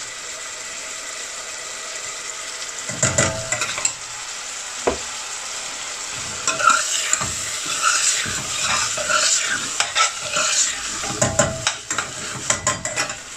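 Diced chicken sizzling in oil in a stainless steel saucepan, with a metal spoon stirring and scraping against the pan in several spells, most of them in the second half.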